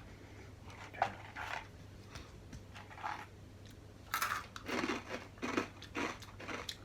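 People crunching and chewing crisp, fry-shaped snack sticks in irregular bites, with the crunching busier from about four seconds in.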